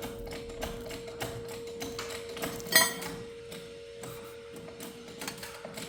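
A jack being cranked to raise a floor joist, giving a run of repeated clicks with one louder, ringing clank about three seconds in. A steady faint hum sits underneath.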